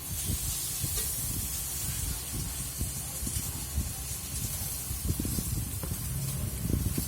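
Food sizzling on a hot pan or grill: a steady hiss that sets in sharply at the start, with light knocks of utensils underneath.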